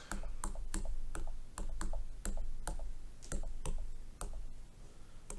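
Stylus tapping out letters on a tablet's touchscreen keyboard: an irregular run of sharp taps, about three or four a second.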